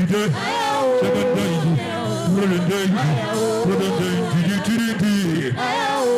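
Worship music with singing: voices holding and bending notes over a steady accompaniment, with no words picked out.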